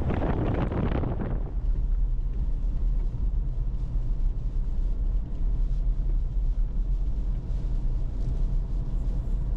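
Wind buffets the microphone for about the first second and a half. Then comes the steady low drone of a vehicle driving, heard from inside the cabin.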